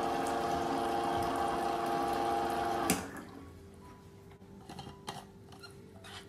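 Electric water-dispenser pump on a large water bottle running with a steady hum while water pours into a flask, then cutting off abruptly with a click about three seconds in. A few light clicks of the flask and its lid being handled follow.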